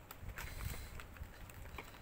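Light taps and clicks with a few soft thumps, loudest a little over half a second in.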